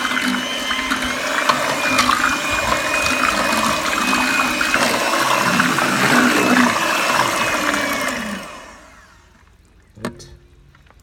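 Electric hand mixer running, its twin beaters churning curd and spice paste in a large steel bowl: a steady whir with liquid sloshing. About eight and a half seconds in, the motor winds down and stops, and a single knock follows near the end.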